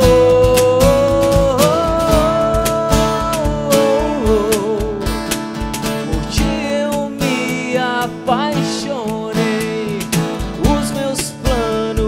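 Live acoustic worship song: a man's voice singing long, wavering held notes into a microphone, over a strummed acoustic guitar, with a cajón keeping a steady beat.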